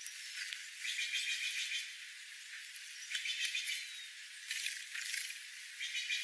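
Small birds calling: four short, harsh chattering bursts about a second or two apart, over a steady hiss.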